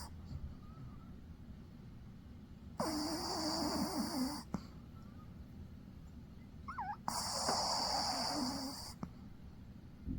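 A dog snoring in its sleep: two long, raspy snores about four seconds apart, each lasting close to two seconds.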